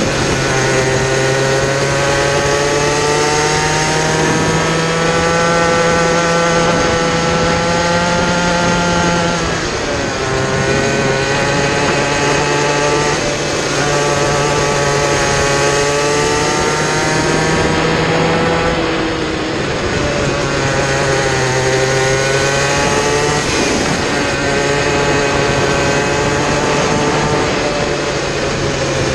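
Kid kart engine heard from on board at racing speed, its pitch climbing slowly along the straights and dropping sharply off the throttle into the corners, several times over.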